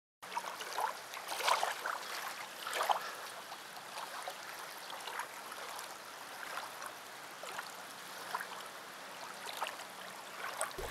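Small waves lapping and splashing gently at the edge of a sandy beach, in irregular splashes that are loudest in the first few seconds.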